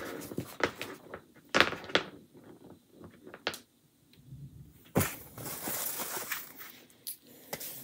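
Small round wooden beads being handled and set down on a cutting mat: a few sharp knocks and taps, then a stretch of rustling handling noise about five seconds in.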